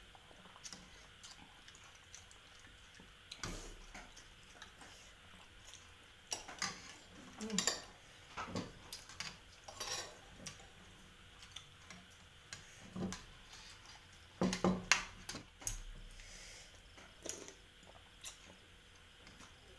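Metal spoons and forks clinking and scraping against ceramic soup bowls during eating: scattered sharp clicks, with a louder cluster about fifteen seconds in.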